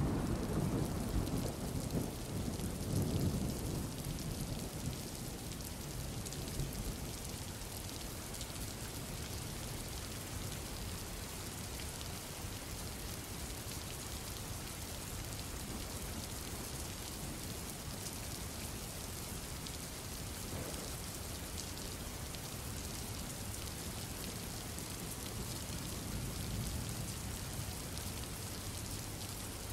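Steady heavy rain with low thunder rumbling through the first few seconds, a recorded rain-and-thunder intro to the track.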